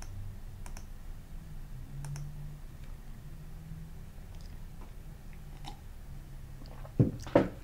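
Computer mouse clicking: a few faint clicks, then two sharper, louder clicks in quick succession near the end, over a low steady hum.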